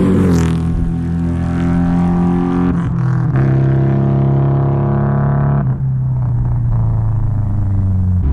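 2002 Nissan Sentra SE-R Spec V's four-cylinder engine running through a true dual exhaust, two cylinders to each pipe with no X-pipe. Its note holds a steady pitch and steps to a new pitch a few times.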